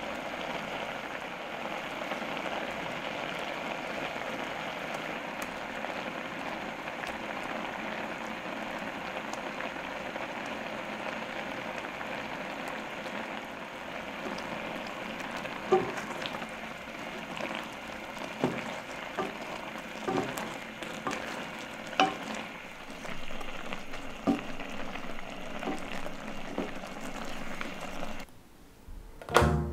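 Gochujang sauce with rice cakes bubbling and sizzling steadily in a cast iron pot. From about halfway through, a wooden spoon stirs it, with irregular knocks and scrapes against the pot and a louder knock just before the end.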